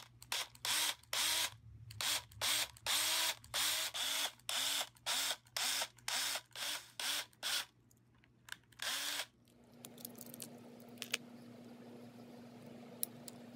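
Cordless drill pulsed in about twenty short bursts, its motor whirring up and down each time, as a small bit drills out the rivet of a die-cast Hot Wheels Bone Shaker. After about nine seconds the drilling stops, leaving a faint hum and a few light handling clicks.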